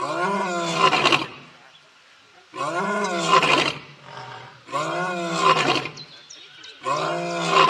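Male lion roaring: four roars about two seconds apart, each a second or so long, rising and then falling in pitch.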